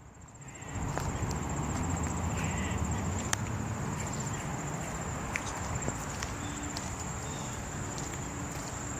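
Outdoor ambience: a steady low rumble with a few light footsteps and a constant high-pitched insect trill. The sound is quieter for the first half-second, then comes back up.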